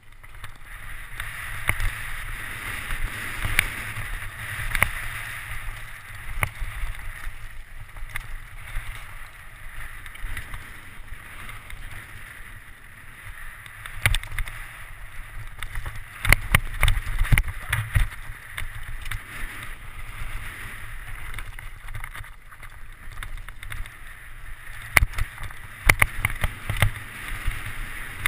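Mountain bike descending a rocky, rooty downhill trail, heard from a helmet camera: a steady rush of air and tyre noise with frequent knocks and rattles from the bike hitting rocks and roots, coming thickest about halfway through and again near the end.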